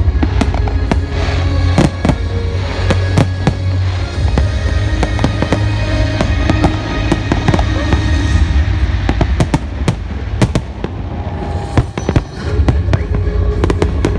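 Fireworks bursting in rapid, irregular bangs over a continuous low rumble, with music playing underneath.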